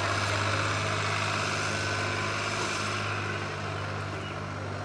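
A steady engine drone: a constant low hum under a hiss that eases off slightly about three seconds in.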